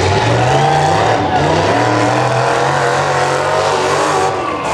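Demolition derby pickup truck engines revving up and down as the trucks drive across the dirt arena.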